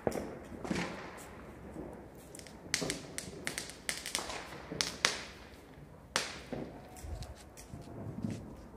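Fireworks going off: a scatter of sharp cracks and bangs at uneven intervals, clustered and loudest around the middle.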